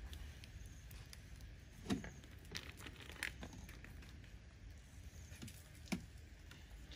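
Snails grilling on a wire grate over a charcoal fire: scattered sharp pops and crackles, the loudest about two seconds in and again near the end, over a faint steady low rumble.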